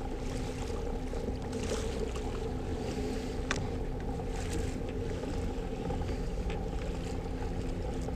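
Hanse 455 sailing yacht under engine: a steady inboard diesel drone with the wash of water and wind noise, and a single sharp click about three and a half seconds in.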